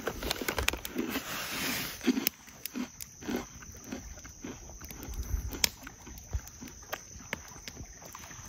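Crunchy bites and chewing of a freeze-dried astronaut ice cream sandwich, an irregular run of sharp crackles with a brief rustle of the wrapper about a second in.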